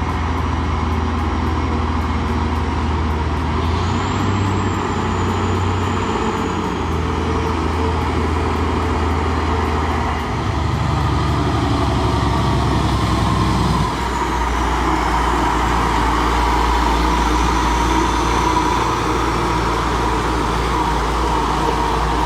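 Heavy truck engine running steadily under load, its pitch shifting as it changes speed and rising in a stronger revving stretch about halfway through. A faint high whistle sounds briefly early on.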